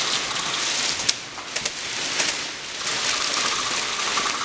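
Airsoft gunfire: a dense, continuous rattle of rapid clicks, with a sharp crack about a second in.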